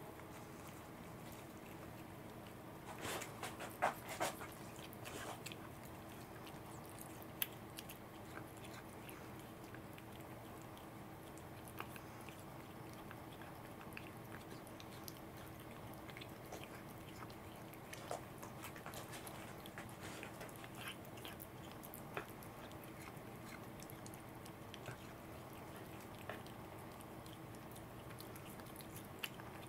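A cat licking and chewing at a piece of salmon held in fingers: faint wet mouth clicks and chewing sounds scattered throughout, with a cluster of louder ones about three to five seconds in.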